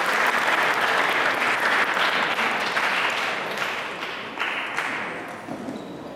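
Audience applauding, loud at first and dying away over the second half.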